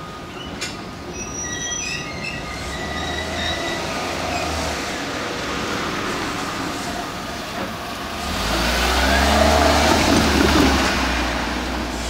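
JR Yokosuka Line electric commuter train creeping slowly up toward the end of the line, to stop just short of the level crossing. Its wheels squeal in short high notes in the first few seconds. From about eight seconds in comes a louder low rumble and hum with sliding tones as it passes closest, easing off near the end.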